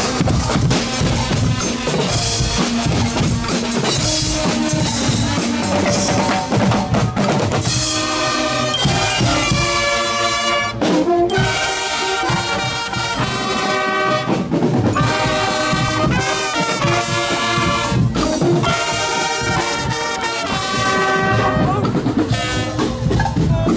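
A band of brass instruments and drums playing a tune with a steady beat.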